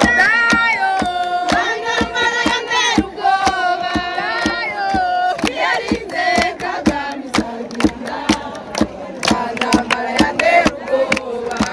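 A crowd singing together, voices holding and bending notes, over steady rhythmic hand clapping.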